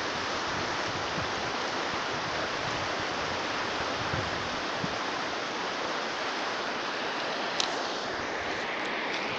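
Fast-flowing mountain river rushing over a stony bed: a steady, even rush of water. A brief sharp click comes late on.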